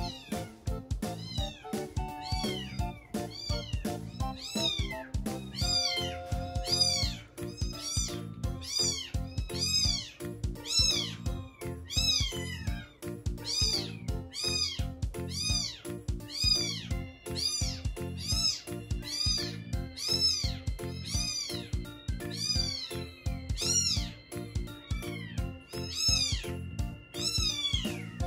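A young kitten mewing over and over, high thin cries about two a second, over background music with a steady beat.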